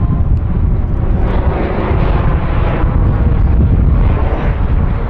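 Jet roar from Canadair CT-114 Tutor aircraft flying in the display: a loud, steady rumble whose hiss swells between about one and three seconds in.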